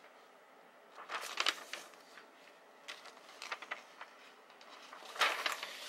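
Paper rustling as the pages of a plastic model kit's instruction manual are handled and turned, in three short bursts.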